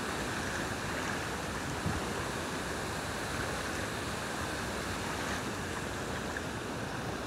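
Steady rushing of a shallow stream running over stones at a weir, with a faint tick about two seconds in.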